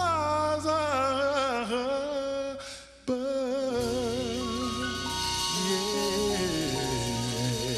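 Live band music with a singer holding long notes with vibrato. About three seconds in, the music cuts off abruptly and a different song starts, with long held notes over the band.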